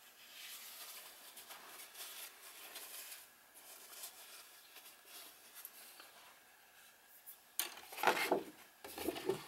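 Soft rustling of a paper tissue dabbing and lifting excess water off wet watercolour paper, then a louder spell of crinkling and handling noise near the end.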